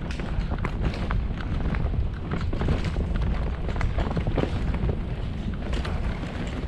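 Mountain bike riding down a dirt forest trail: tyre noise over dirt and stones with irregular rattles and knocks from the bike, over a steady low wind rumble on the camera microphone.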